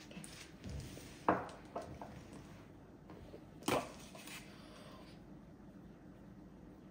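Quiet room tone broken by a few short clicks and knocks, the two loudest about a second in and a little before the middle.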